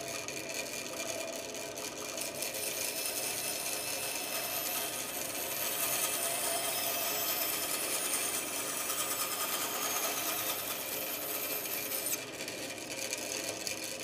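Bandsaw running while its blade cuts through a small plywood board, fed in gently and eased out at the end of the cut. The cutting noise stops about twelve seconds in as the blade comes out of the wood, and the saw keeps running.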